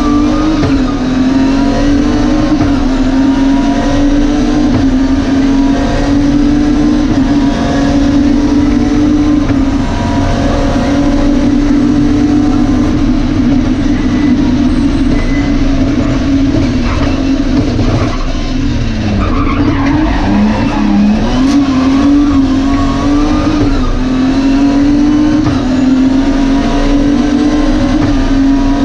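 BMW E30 rally car's engine heard from inside the cabin, held at high revs under full throttle, with a constant rush of noise beneath it. About nineteen seconds in the revs drop briefly and wobble, then climb back to a steady pull.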